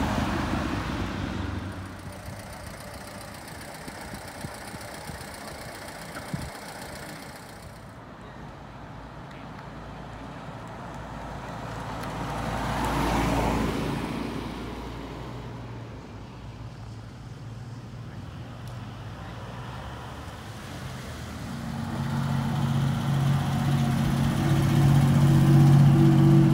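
Classic open-top sports cars driving past one after another. One engine fades away just after the start, another car swells past around 13 s, and from about 22 s a louder engine with a steady low note builds up, loudest near the end.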